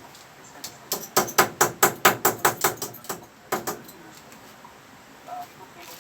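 Hammer blows in a quick run of about a dozen, roughly five a second, then two more a moment later.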